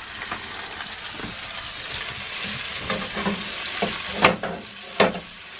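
Slices of black pudding sizzling in hot oil in a frying pan over high heat, the hiss growing louder through the first couple of seconds. A few sharp knocks near the end stand out over the sizzle.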